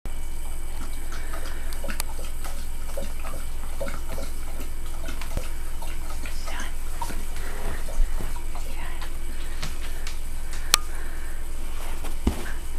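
A small terrier playing with a rubber ball on a couch: scattered faint rustles and taps over a steady low hum, with a thump about two-thirds of the way through and a sharp click a little later.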